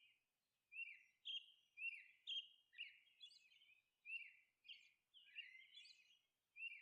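Faint bird chirping: a run of short chirps that drop in pitch, about two a second, with brief gaps.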